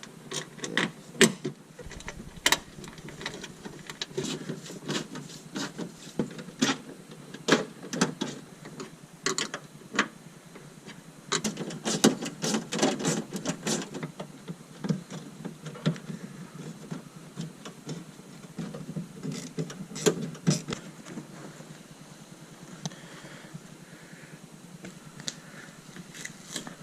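Irregular clicks, taps and light rattles of hand work on car door parts, with no steady motor or drill sound.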